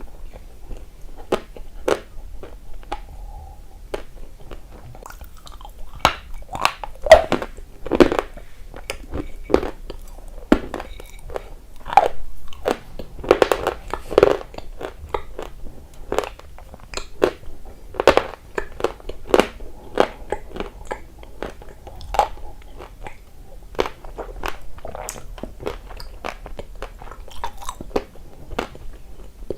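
Close-miked crunching as a person bites and chews dry lumps of edible mineral, with many sharp crackles at an irregular pace, densest and loudest in the middle.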